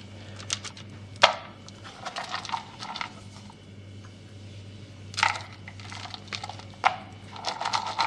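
Chopped almonds tipped from a bowl into a buttered metal tube cake pan and pressed around it by hand: scattered scrapes and rattles of nut pieces, with a few sharp clicks of the bowl and pan knocking together.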